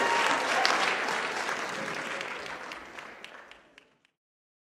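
Audience applauding, fading away steadily over about four seconds until gone.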